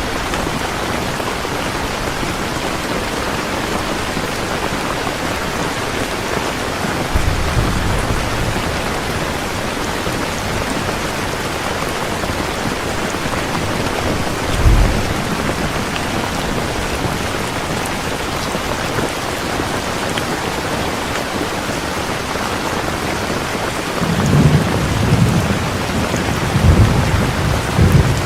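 Steady, heavy rainfall hissing evenly, with low rumbles of distant thunder rolling in about 7 seconds in, again briefly about 15 seconds in, and twice near the end.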